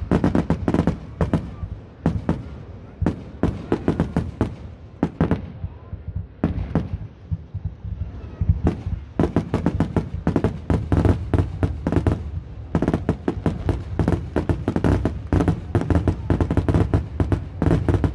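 Aerial fireworks shells launching and bursting in quick succession, a dense string of sharp bangs and crackles. The bangs thin out briefly in the middle, then come thick and fast through the second half.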